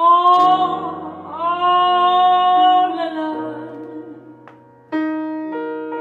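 A jazz ballad sung by a woman, who holds two long notes with vibrato, accompanying herself on a grand piano. The piano rings on under the voice, and a new piano chord is struck near the end.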